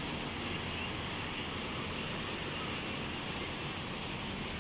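Heavy rain falling, a steady even hiss with a low rumble underneath.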